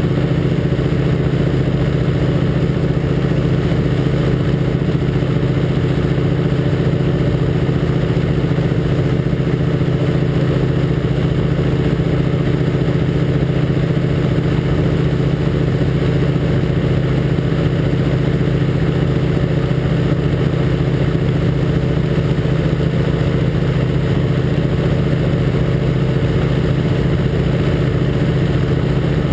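North American Harvard II's Pratt & Whitney R-1340 Wasp radial engine and propeller running steadily in flight at an unchanging pitch, heard from inside the cockpit with a steady rush of air.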